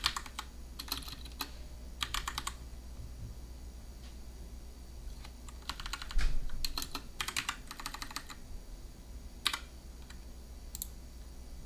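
Computer keyboard typing in several short bursts of keystrokes with pauses between them, ending in one or two single key presses.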